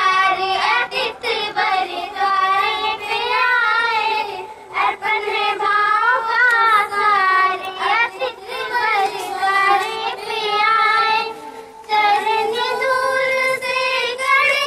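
A young schoolgirl singing a Hindi welcome song for guests, in long held phrases with a wavering pitch and short breaks about 5 and 12 seconds in.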